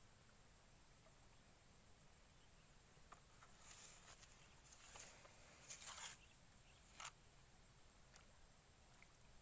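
Near silence with a faint steady high hiss, broken by a few brief soft rustles about four to seven seconds in.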